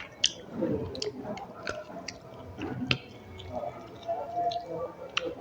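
A person chewing a mouthful of food, with irregular wet smacking and clicking mouth sounds.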